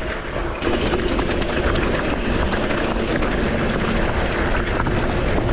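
Mountain bike running fast downhill over loose dirt and rock: tyres crunching and skittering, with steady clattering and rattling from the bike. It gets louder about a second in.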